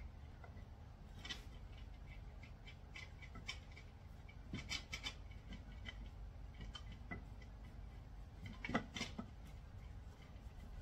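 Faint handling noises of a wooden mounting plate and brass fitting being worked onto a turned wooden table pedestal by hand: scattered small clicks and scrapes, a cluster of them about halfway through and the loudest knock about nine seconds in.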